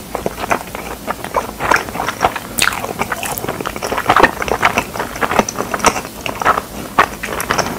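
Close-miked chewing of a mouthful of pizza: a quick, irregular run of mouth clicks and crackles, several a second.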